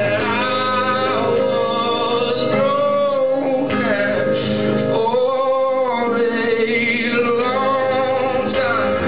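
A man singing a slow song with long held notes, accompanying himself on acoustic guitar.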